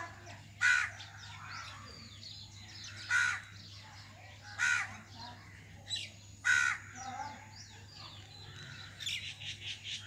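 Common myna calling: about five loud, short, harsh calls a second or two apart, with softer chirps and whistled notes in between. A quick run of chattering notes comes near the end.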